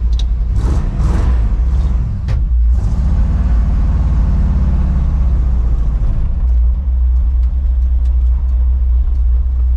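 1964 Ford pickup's engine running as the truck pulls away and drives, heard from inside the cab: a loud steady low rumble, with a few clicks and clunks in the first few seconds as the column shifter is worked.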